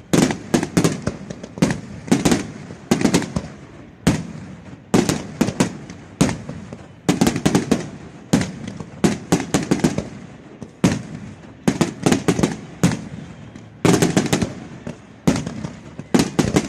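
Aerial fireworks display: rapid volleys of sharp bangs from shells bursting overhead, several in quick succession every second or so, each trailed by an echo.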